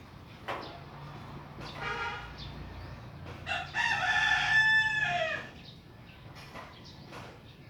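Rooster crowing: a shorter, fainter crow about two seconds in, then a loud, long crow whose pitch drops at the end.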